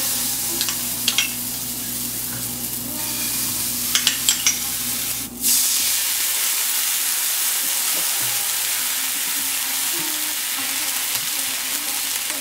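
Mustard oil and mustard seed paste sizzling in a frying pan, with a few sharp clicks. About five seconds in, water is poured into the hot oil, and the sizzle becomes louder and fuller as a wooden spatula stirs the bubbling mixture.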